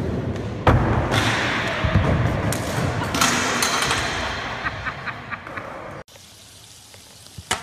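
A heavy thump about a second in, followed by several seconds of loud rushing noise that slowly fades and cuts off abruptly about six seconds in.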